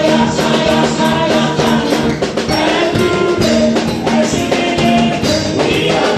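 Upbeat music with singing over a steady beat.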